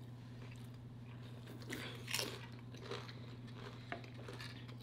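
A person chewing and biting food close to the microphone, with a few short crunchy bites about two seconds in and again near three and four seconds, over a faint steady low hum.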